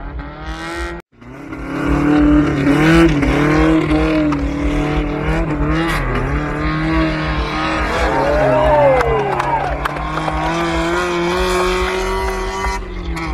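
Off-road 4x4 competition vehicle's engine running under load, its pitch rising and falling with the throttle. The sound cuts out briefly about a second in.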